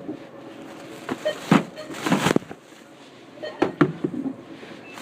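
A woman coughing hard in short, harsh bursts, in three bouts over a few seconds.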